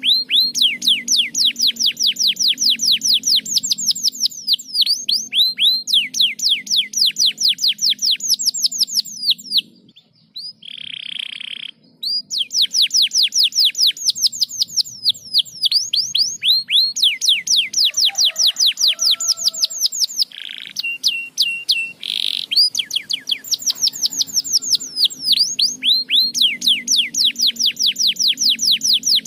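Domestic canary singing: long trills of rapid, repeated falling whistled notes, several a second, broken twice by short held buzzy or steady notes before the trills resume.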